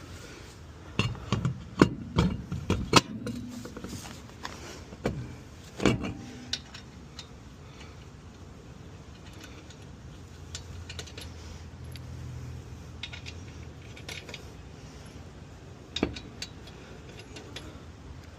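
Metal tools clinking and clanking as they are handled during a car tire change: a cluster of sharp knocks in the first few seconds, another about six seconds in, and a lone one near the end.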